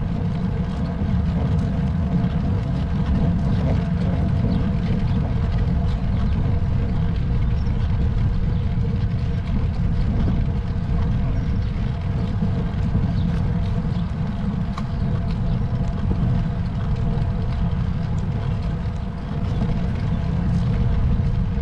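Wind rumbling over the microphone of a camera on a moving road bike, a steady low buffeting with a faint steady hum above it.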